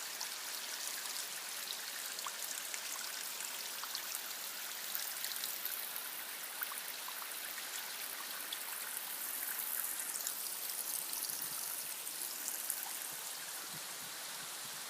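A stream running: a steady rush of water with small splashes.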